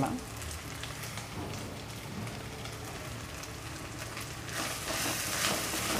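Shallots, dried red chillies and turmeric sizzling gently in hot oil in a kadai, with faint crackles. About four and a half seconds in, the sizzle grows louder and sharper as fresh curry leaves go into the oil.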